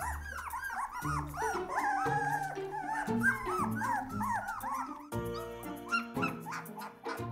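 Young Portuguese Water Dog puppies whimpering and squealing in many short rising-and-falling cries, with one longer wavering whine about two seconds in, over background music.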